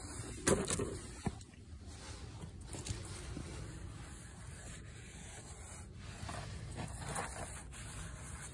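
Handling of a plastic motor-oil jug: a sharp knock about half a second in and a smaller click a moment later, then a paper towel rubbing over the jug's plastic side.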